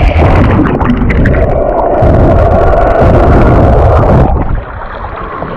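Water rushing and bubbling around an underwater GoPro, loud and muffled, dropping to a softer hiss about four seconds in.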